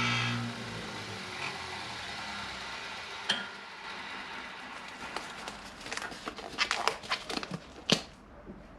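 Belt sander with a linen belt running steadily while a golf club ferrule is turned down on it, with a sharp click about three seconds in and a run of clicks and taps from about five seconds in. The running noise drops away just after eight seconds.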